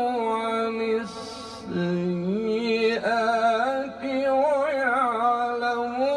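Male Quran reciter (mujawwad style) holding a long melismatic vowel in a maqam, sliding and trilling between sustained notes; the melody dips to a low note about two seconds in, then climbs back up with a wavering ornament.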